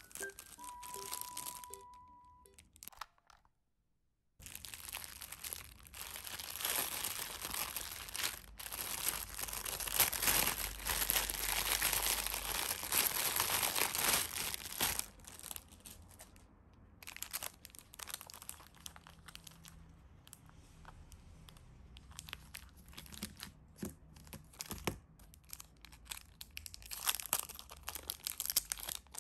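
Plastic packaging being handled: crinkling and tearing, busiest through the first half, then lighter rustling with small clicks. A short steady electronic tone sounds at the very start.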